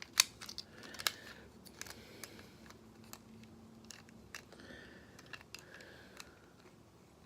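Plastic parts of a Transformers Combiner Wars Sky Lynx figure clicking and rubbing as it is handled and transformed, with scattered sharp clicks and soft scraping between them.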